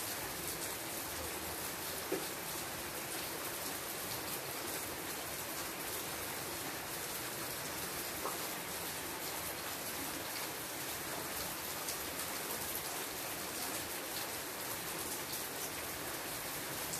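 Steady rain falling on leafy shrubs: an even hiss of drops, with a few louder single drops hitting close by.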